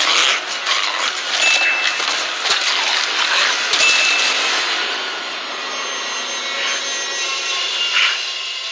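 Sword-fight sound effects against snarling creatures: a dense run of blade swishes, hits and impacts, with two brief high rings, that eases about halfway into a quieter hiss broken by a couple of short screeches near the end.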